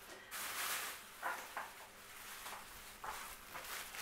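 Rustling and crackling of packaging being handled: a longer rustle in the first second, two short crackles, then more rustling near the end.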